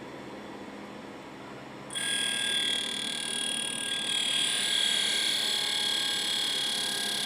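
Baldor carbide grinder's wheel coasting down, with a tool held against it: about two seconds in, contact begins a steady high-pitched grinding with several high ringing tones. The contact runs fairly even with little skipping, a sign the wheel is now running nearly true.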